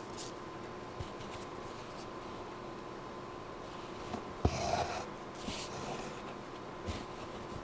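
Needle and thread being worked by hand through lace: soft rustling and rubbing as the thread is drawn through the stitches, with a light knock about halfway through. A steady faint hum lies underneath.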